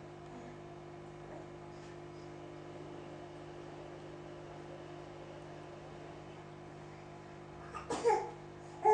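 A steady low hum with fixed tones for most of the stretch, then a small child's babbling voice, falling in pitch, about eight seconds in.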